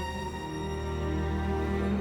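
Slow, sustained background music with held notes, quieter for a moment after it begins and building again near the end.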